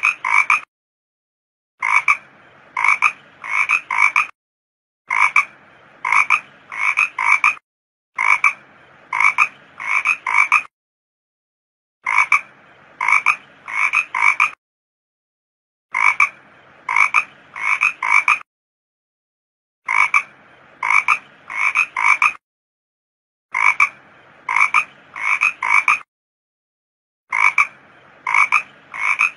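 Toad calls repeating in a loop: groups of about four short croaks spaced half a second or so apart, each group followed by a second or so of dead silence, the pattern coming round every three and a half to four seconds.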